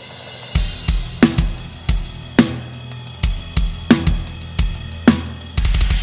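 Live heavy metal drumming: the drum kit comes in hard about half a second in, with kick drum, snare hits and crashes on Sabian cymbals in a steady driving rhythm, the rest of the band playing underneath.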